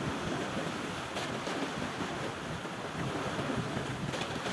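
Small sea waves washing against a shallow shore, with wind rumbling on the microphone.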